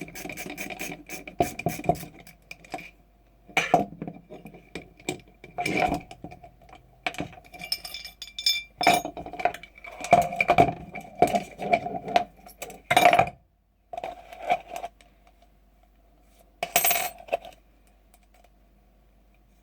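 Metal parts and tools of a G&G GR25 airsoft rifle clinking and knocking as it is stripped down: irregular sharp clinks, some ringing briefly, with a quieter stretch in the last few seconds.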